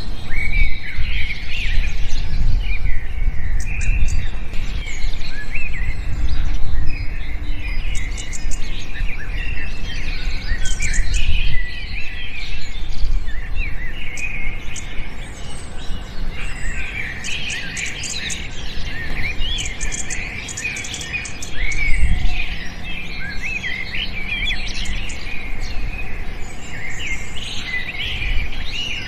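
Many small birds chirping and twittering at once, a dense chorus of short overlapping calls and warbles, over a low rumble.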